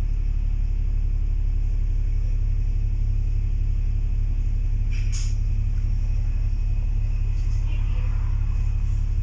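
Dennis Trident 2 double-decker bus's diesel engine and drivetrain running steadily under way, a low rumble heard from inside the upper deck. A short hiss sounds about five seconds in.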